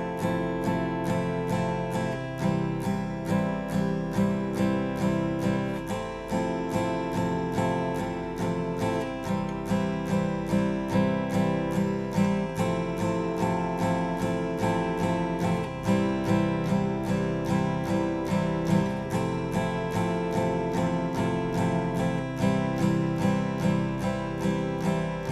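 Guitar strummed in steady downstrokes, about three a second, switching back and forth between F major and C major chords every few seconds.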